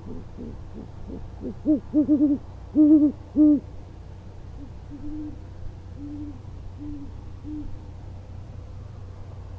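A pair of great horned owls hooting to each other. First comes a run of loud hoots close to the nest, each rising and falling in pitch. Then, about a second later, four fainter, steadier hoots answer.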